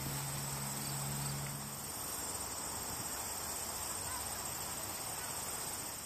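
Steady, high-pitched chorus of insects such as crickets trilling, with a low steady hum underneath that stops about two seconds in.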